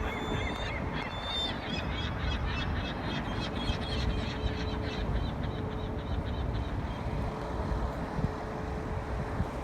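A flock of birds calling in rapid runs of short, repeated calls that thin out about halfway through, over wind rumble on the microphone.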